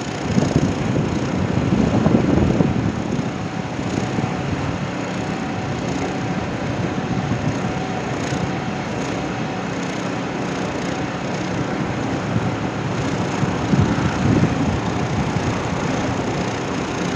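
Steady rumble of road traffic, swelling briefly about two seconds in and again near the end.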